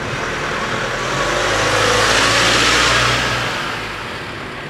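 An SUV drives past close by; its engine and tyre noise swell to a peak about two to three seconds in, then fade as it moves away.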